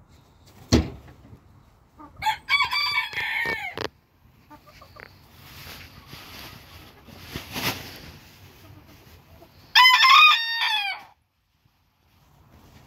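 Booted bantam rooster crowing twice, once about two seconds in and again near the ten-second mark, each crow short and high-pitched. A sharp thump comes just before the first crow, and a stretch of rustling noise falls between the two.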